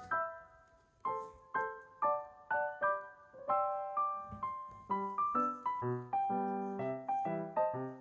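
Background piano music: a light melody of single struck notes, with a lower bass line joining about five seconds in.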